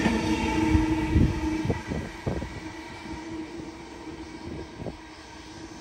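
Electric double-deck suburban train running out past the platform. Its wheels clack over the rail joints as the last carriages go by, about two seconds in, and then its noise fades as it moves away, leaving a steady hum.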